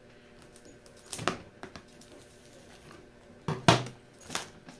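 A cardboard box being opened with scissors and by hand: a few separate sharp clicks and knocks, about a second in and again near the end, the loudest a little after three and a half seconds in.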